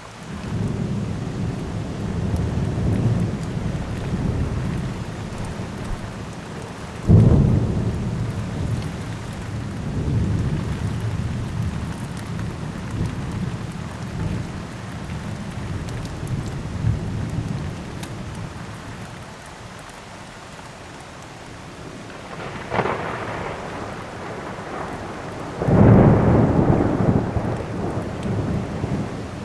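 Thunder over steady heavy rain. A long low rumble sets in at the start. About seven seconds in a sharp thunderclap rolls on for many seconds, then a short crack comes near the end, followed by the loudest clap, which rumbles away.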